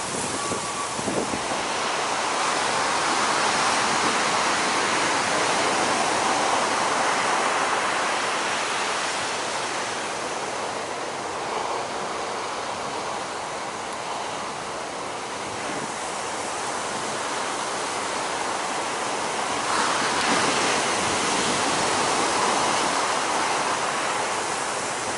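Heavy surf from big breaking ocean waves, a steady wash of noise that swells louder twice: a few seconds in and again near the end.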